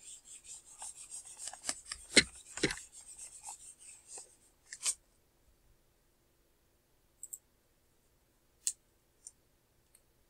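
Small dry-erase whiteboard being wiped clean: scratchy rubbing strokes for about five seconds, then stopping. A few sharp, separate clicks follow in the second half.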